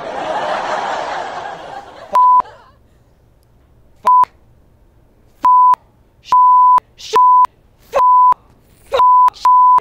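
A loud, harsh burst of noise lasting about two seconds, then a string of about eight steady high censor bleeps, short and long, cutting in and out over a shouted outburst.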